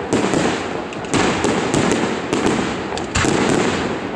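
Aerial firework shells bursting in quick succession: a rapid string of sharp bangs, the loudest about a second in and near three seconds in, each followed by a rolling echo.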